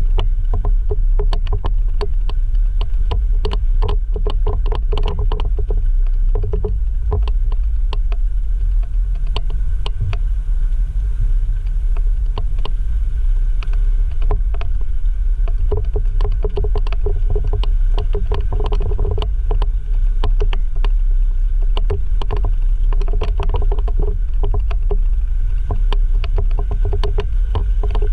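Jeep JL Rubicon driving a rough off-road trail: a steady low rumble of engine and tyres, with frequent quick clicks and rattles.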